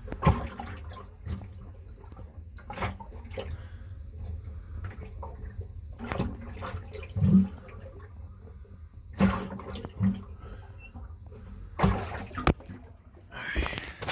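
Irregular knocks and scraping over sloshing water and a low rumble, from handling things in a wet boat bilge.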